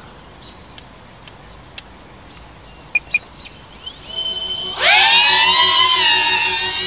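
DJI Avata FPV drone's motors spinning up for takeoff about five seconds in: a sudden loud high whine that rises in pitch, then holds, wavering with the throttle. Before it, fairly quiet with a few light clicks and two short beeps.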